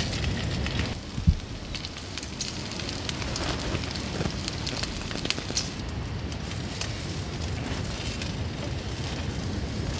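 Bacon and fried eggs sizzling in a frying pan on a gas camping stove, the fat popping and crackling in many small sharp ticks. A single loud knock comes about a second in.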